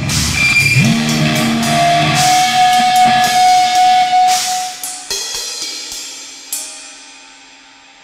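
Drum kit and electric guitar playing loud, noisy rock, with cymbal crashes and long held guitar notes. The playing stops about four and a half seconds in, and the cymbals and notes ring out and die away, with one last sharp hit about six and a half seconds in.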